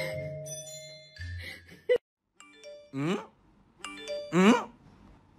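Chiming mallet-percussion music that ends in a sharp click and a brief silence about two seconds in. A tinkling chime tune then resumes, and over it come two short, gliding kitten meows, the second louder.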